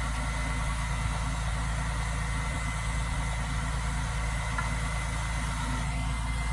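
Engine of a boom truck running steadily, a low even rumble, while its crane swings an empty drywall fork.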